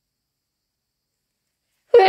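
Silence, broken at the very end by the sudden, loud start of a person's sneeze.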